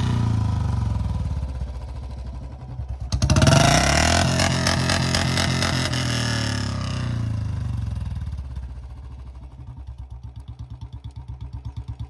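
Royal Enfield Bullet 350's single-cylinder engine running. It is revved sharply once about three seconds in, then falls back over several seconds to a quieter idle with even, regular beats.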